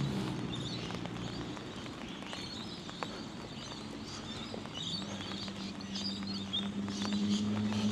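Steady monsoon rain falling, with scattered sharp ticks of drops and birds chirping. A low engine hum from passing traffic builds up in the second half.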